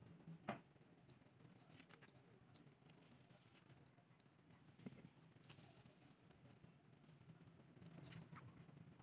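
Near silence, with a few faint taps and rustles of paper feathers being placed and pressed onto a corrugated cardboard disc by gloved hands.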